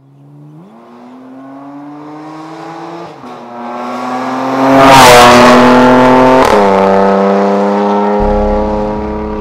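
Porsche Macan Turbo's twin-turbo V6 accelerating hard through a catless, valved Fi exhaust. The engine note fades in and climbs in pitch, dropping at two upshifts about three and six and a half seconds in. It is loudest around five seconds in, then holds and fades away.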